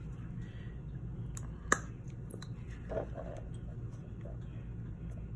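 Small sharp plastic clicks from a plastic syringe and small bottle being handled while vitamin E is measured out, with one louder click about a second and a half in, over a steady low hum.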